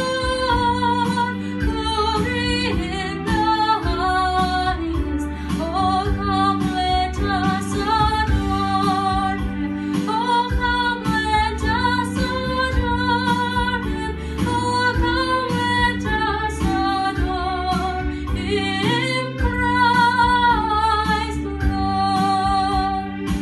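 A girl singing a Christmas carol solo over instrumental accompaniment with a steady beat.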